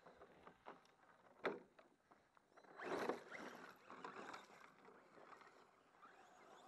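Water splashing and churning as a radio-controlled short-course truck is driven through water. A sharp knock comes about a second and a half in, then a louder splashing rush around three seconds that fades away.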